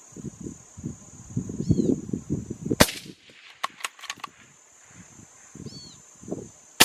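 .17 HMR rimfire rifle fired twice: a sharp crack just under three seconds in and another at the very end. Crickets trill steadily underneath.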